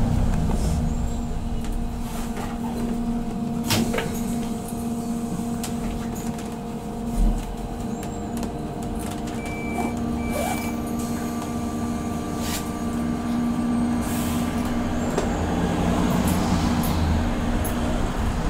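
Van Hool AG300T trolleybus heard from inside the cabin while driving on its auxiliary diesel engine: a steady engine hum over road rumble, with a few sharp knocks and rattles. It grows louder in the last few seconds as the bus pulls harder.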